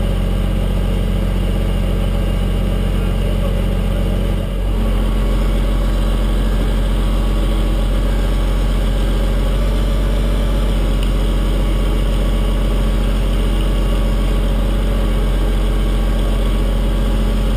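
Heavy truck engine running steadily. About four and a half seconds in its note dips briefly, then settles back into a steady run.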